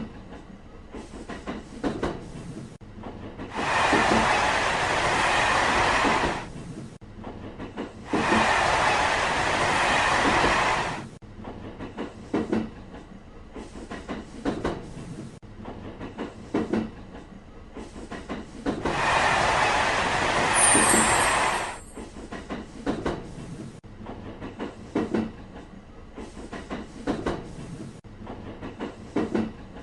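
Trains passing: three loud rushing pass-bys of about three seconds each, about four seconds, eight seconds and nineteen seconds in. Between them, train wheels clack over the rails.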